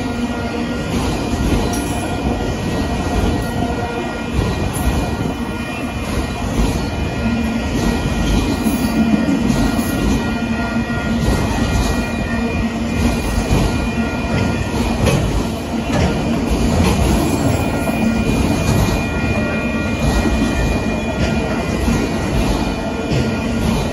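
Union Pacific freight train of autorack cars rolling steadily past: a continuous loud rumble and clatter of wheels on rail, with a steady squeal from the wheels over it.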